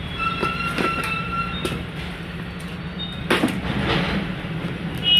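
Packing tape being peeled and ripped off a cardboard box. It gives a squealing pull for about the first second and a half, then sharp crackling rips and rustles of tape and cardboard a little after three seconds in, over a steady low hum.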